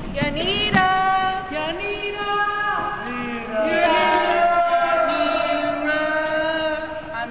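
Several young voices singing together, starting with sliding notes and moving into long held notes that overlap from about halfway through.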